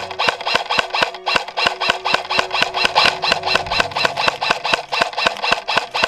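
Rapid, even mechanical clicking close to the microphone, about seven clicks a second.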